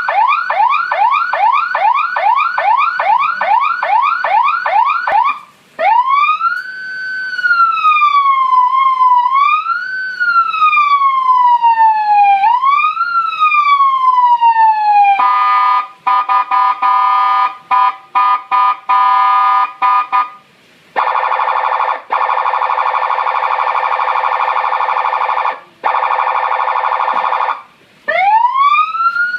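Senken CJB 100-watt electronic police siren cycling through its tones. It starts with a fast yelp of about three rising sweeps a second, then slow wail sweeps rising and falling. After that comes a steady horn-like tone chopped on and off, then long steady horn blasts, and a new wail sweep begins near the end.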